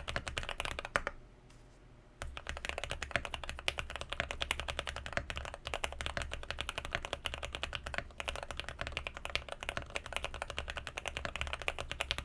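Typing on a KBT68 mechanical keyboard with Aqua King linear switches: a fast, steady stream of keystroke clacks. It stops for about a second near the start, then carries on. A faint low hum sits underneath.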